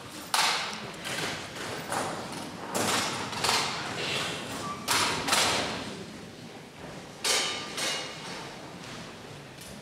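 Metal-framed chairs and music stands being picked up and set down on a wooden stage: a string of about nine knocks and clatters, a few with a brief metallic ring.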